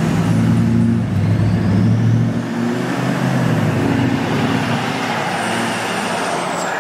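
Turbodiesel pickup truck engine running as the truck drives along, heard through an open cab window. A faint turbo whistle rises in pitch early on and falls again near the end.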